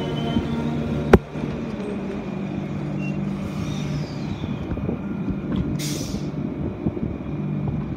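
A Transperth electric train standing at the platform with its doors open, humming steadily. There is a single sharp click about a second in, and a short hiss of air near six seconds.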